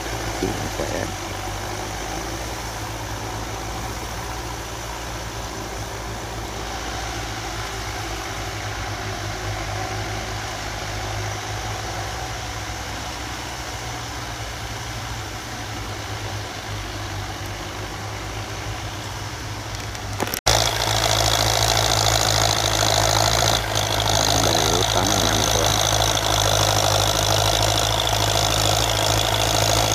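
Belarus tractor diesel engines running steadily under load while pulling a disc plough through the soil. About two-thirds of the way through the sound jumps abruptly to a closer, louder tractor engine with a stronger hiss.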